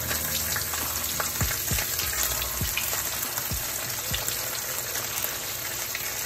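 Whole flour-dredged blacktail snapper (toau) shallow-frying in hot oil in a pan: a steady sizzle with scattered pops and crackles.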